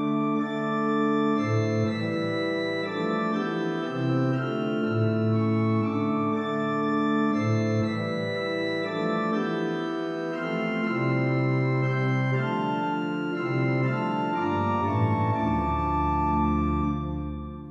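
Pipe organ playing a 16th-century Polish keyboard piece in several voices, with deep pedal bass notes coming in and out. It closes on a held low chord that dies away at the end.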